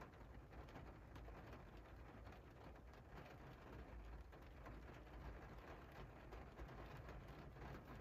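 Faint, steady rain falling on a window pane, with many small drops ticking on the glass over a low rumble.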